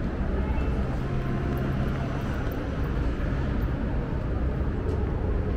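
Steady low rumble of city traffic, with a faint hum of engines running underneath.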